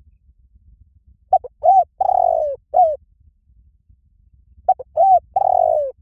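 Spotted dove cooing in two phrases, each of short coos around one longer, falling coo. The second phrase starts about halfway through.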